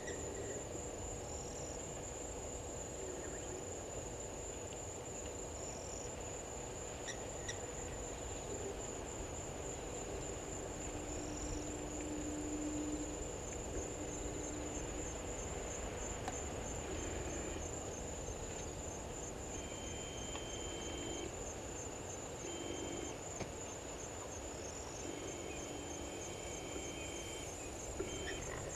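Insects trilling steadily at a high pitch as a continuous chorus, with short bird calls now and then.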